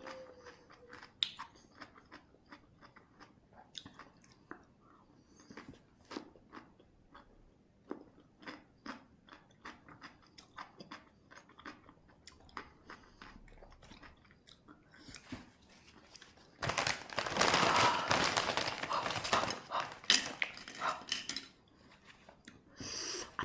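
A person biting and chewing crunchy cucumber close to the microphone, with many short crisp crunches. About seventeen seconds in there is a louder, denser stretch of noise lasting roughly four seconds.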